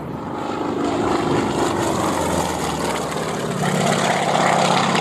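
Propeller-driven aerobatic planes droning overhead. The engine sound swells as they pass, its pitch falling about a second in, then grows louder again near the end.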